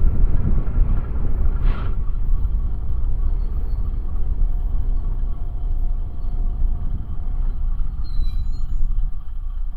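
Isumi Railway KiHa 52 diesel railcar running, a steady low rumble, with a brief hiss about two seconds in.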